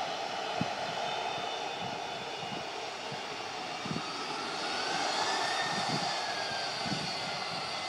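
Jet airliner engines running on the runway in the distance: a steady jet roar with a high whine, one whine rising and then falling in pitch across the second half.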